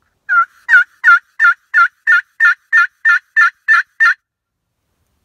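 Handmade wooden pot (friction) turkey call worked with a striker, giving a run of about a dozen hen yelps at about three a second, then stopping.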